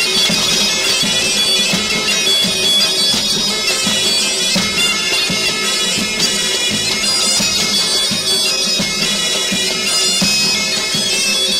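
Tunisian mezoued music: a mezoued bagpipe playing a reedy melody over a steady drone, with a regular drum beat underneath.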